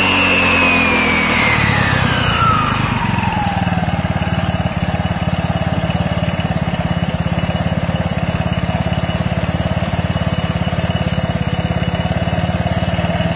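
Scooter engine running with its CVT cover off: over the first few seconds the revs drop and a high whine from the spinning belt and variator falls in pitch and fades, then the engine settles into a steady idle.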